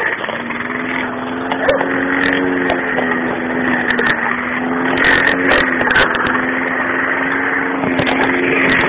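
A motor running with a steady hum at one pitch, over a rushing noise, with scattered clicks and knocks.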